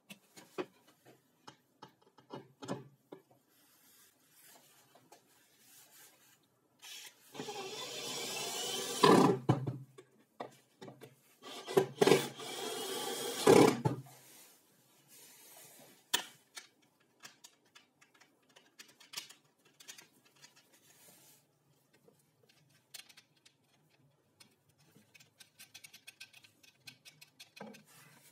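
A jigsaw's metal base plate scraping and rubbing across a plywood top in two bursts of two or three seconds each, with light knocks and clicks of handling before and after.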